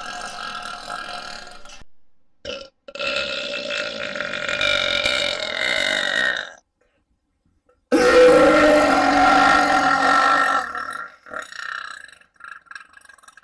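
Long, drawn-out human burps, three in a row. A short silence falls before the last and loudest one, which starts about eight seconds in. The middle burp sinks in pitch toward its end.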